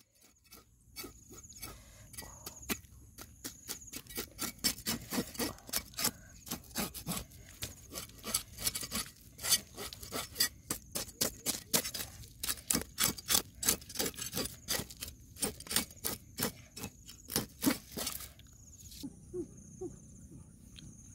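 Cleaver blade scraping scales off a whole fish on a wooden chopping block: short repeated scraping strokes, a few a second, that stop near the end.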